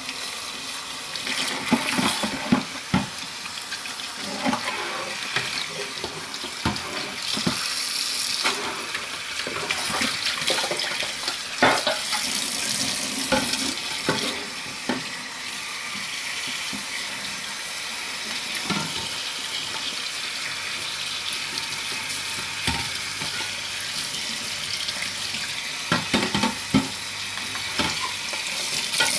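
Water running from a tap into a stainless steel sink while a metal muffin tin is scrubbed and rinsed in soapy water, with scattered knocks and clatters of the tin against the sink.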